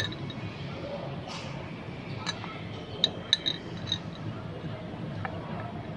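Light metallic clinks from steel bolts and a hex key tapping against a motorcycle crankcase side cover as it is fitted: a handful of short clicks about two to four seconds in, and one more near the end.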